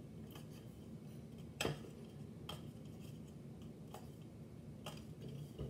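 Scattered light clicks and knocks from a black cylindrical object being handled, about half a dozen, with one louder knock about a second and a half in.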